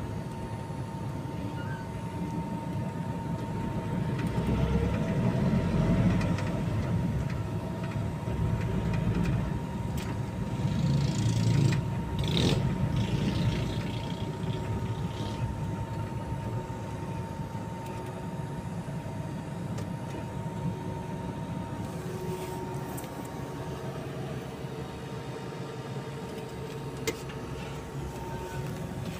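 Engine and road noise of a moving van, heard from inside the cabin: a steady low rumble that swells for several seconds in the first half and then settles, with a faint steady whine over it.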